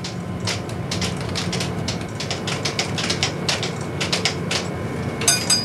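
Rapid, irregular mechanical clacking of striking keys or type, over a steady low hum, with a short high ringing tone near the end.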